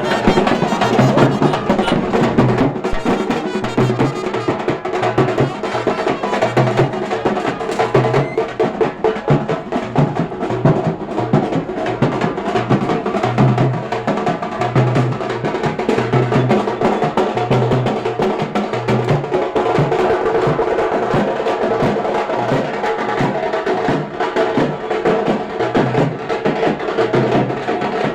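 Live festival drumming: a percussion ensemble of drums playing a loud, steady rhythm, with a deep beat about once a second under dense, continuous playing.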